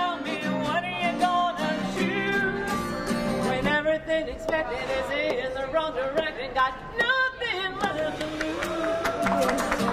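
A woman singing, accompanied by a strummed acoustic guitar.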